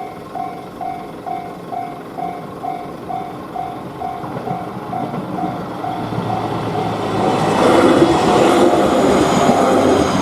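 Japanese level-crossing warning bell ("kan-kan") ringing at about two strikes a second while an electric train approaches and passes. The train grows loud from about four seconds in and is loudest near the end, drowning out the bell.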